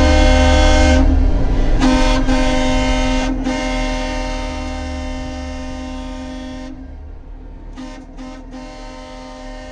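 A vehicle horn blown in a long steady blast from a passing convoy vehicle, broken briefly a few times, then fading away over several seconds. A low rumble runs underneath.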